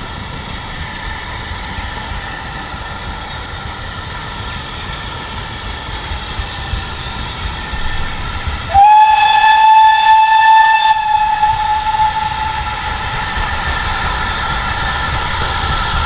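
A steam locomotive whistle, a BR Standard Class 5, sounds once, a clear note held for about three seconds that rises slightly as it opens. Under it runs the steady low rumble of the approaching train.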